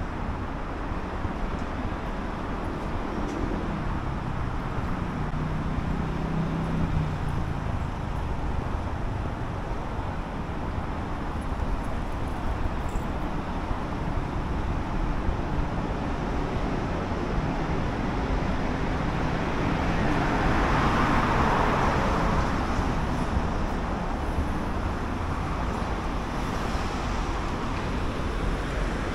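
City street traffic: a steady wash of road noise with vehicles passing, including a low engine hum early on and one vehicle passing more loudly about two-thirds of the way through.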